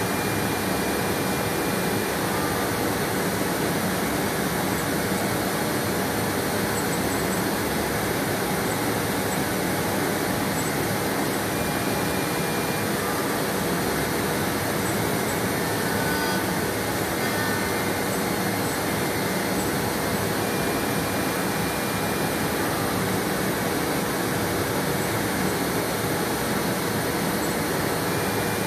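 CNC router spindle running steadily while it routes an aluminum composite (Alupanel) sheet, with the constant rushing noise of suction and a faint steady hum, unchanged throughout.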